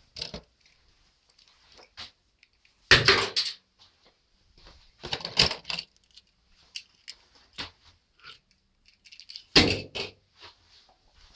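Small die-cast toy cars clattering against each other and the sides of a plastic storage bin as a hand rummages through them, in three short bursts of rattling with a few light clicks between.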